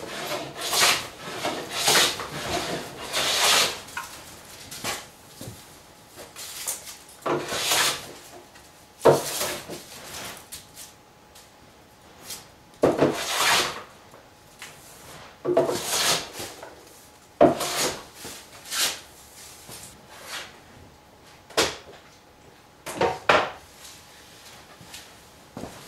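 A hand plane taking strokes along the edge of a wooden cladding board, about one stroke a second for the first few seconds. Then come scattered wooden knocks and short scrapes with quiet gaps between them.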